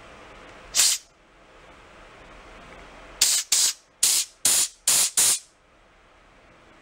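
Compressed-air blow gun hissing in short blasts into a carburetor's fuel passage to push the float needle seat seal out: one blast about a second in, then six quick blasts in a row a couple of seconds later.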